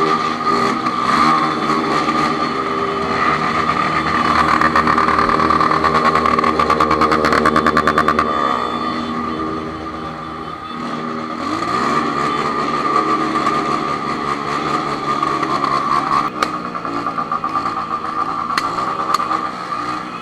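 Honda CB1000 inline-four motorcycle engine under way, revving up for several seconds, then easing off and picking up again.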